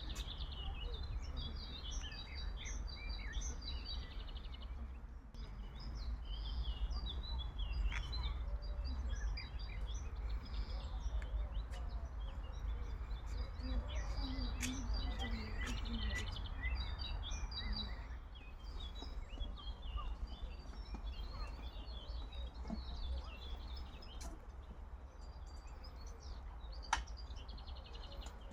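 Many small birds chirping and twittering over a steady low rumble. A single sharp click comes near the end.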